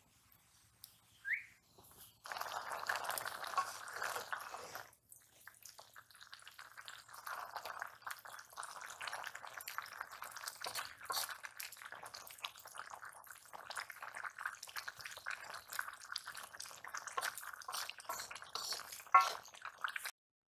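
Malabar spinach boiling in water in an aluminium wok over a wood fire, with a dense bubbling crackle as it is stirred with a wooden spatula and a sharp knock near the end. A short rising chirp comes about a second in, before the boiling is heard.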